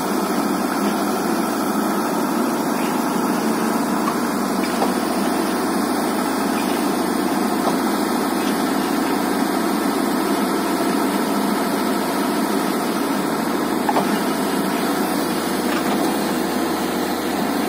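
Tata Hitachi EX110 Super excavator's diesel engine running steadily at an even speed.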